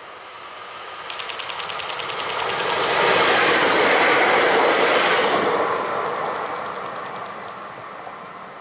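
Electric multiple unit passenger train passing at speed: a rapid even clicking at about ten a second as it draws near, then the rush of wheels on rail swells to a peak a few seconds in and fades away as it recedes.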